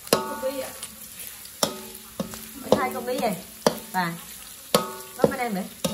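Metal spatula stirring and scraping diced pork around a steel wok over sizzling oil. The spatula clanks against the wok about five times, each clank ringing briefly.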